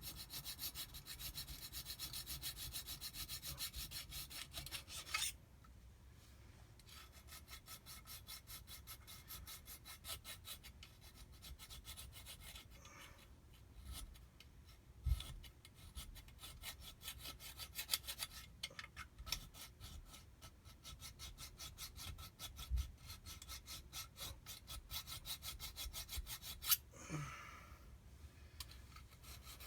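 A hand file rasping on a metal jet-ski pump part in quick, even back-and-forth strokes, with a short pause about five seconds in and a couple of dull thumps later on.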